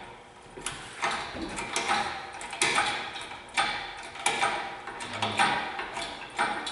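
Hydraulic engine hoist being pumped to raise an engine and transmission, with sharp mechanical clicks and clanks about once a second from the pump handle, boom and chain.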